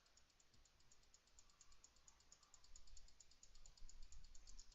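Near silence: faint room tone with a low hum and a faint, rapid, even high-pitched ticking, about eight ticks a second.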